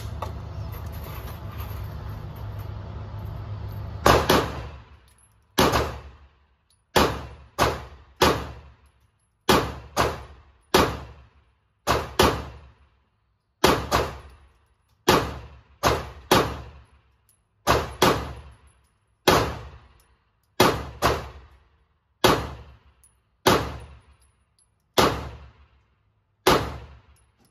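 Canik TTI Combat 9mm pistol fired slow-fire with 124-grain range ammunition: about two dozen single shots at uneven intervals of half a second to a second and a half, each followed by a short echo off the indoor range. A steady background hum runs for the first few seconds before the first shot.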